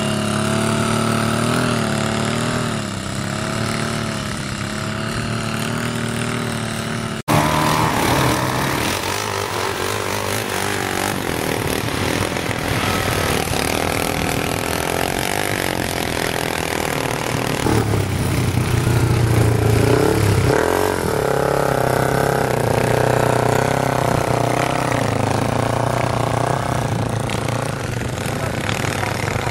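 Motorcycle engines revving hard in loose sand: first a Cagiva adventure bike accelerating with its engine pitch rising and falling. After an abrupt cut about seven seconds in, off-road bikes rev as their rear wheels spin and throw sand, with several engines running together toward the end.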